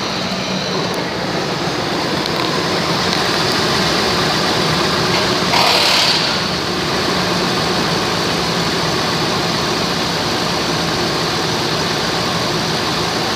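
2004 Ford Explorer engine idling steadily, with a brief louder swell about halfway through.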